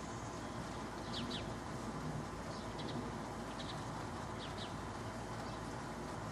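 Small birds chirping: short, high, downward-sliding notes, often in quick pairs, every second or so, over a steady background hiss.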